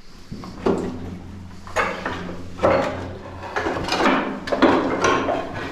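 Footsteps crunching and scraping over stones and rubble on a concrete bunker floor, in an uneven run of steps that comes closer together towards the end, with a steady low hum underneath.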